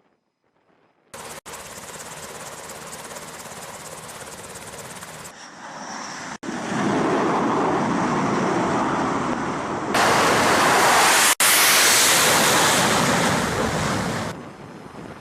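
Rushing shipboard noise aboard an aircraft carrier at sea, a steady roar without a clear tone, heard in several short cut-together clips. It starts about a second in and is loudest in the later part before dropping back near the end.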